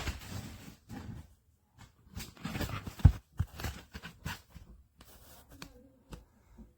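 Handling noises from a cardboard-framed furnace filter: scattered knocks and taps, with the loudest at the start and about three seconds in, and rustling in between.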